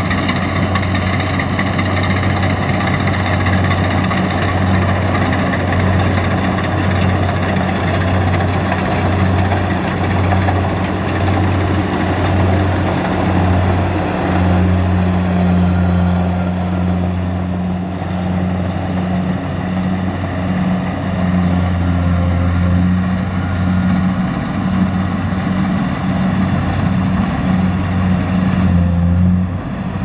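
Kubota DC-70 Plus rice combine harvester's diesel engine running steadily under load while it cuts and threshes rice. The drone shifts in tone about halfway through and again near the end.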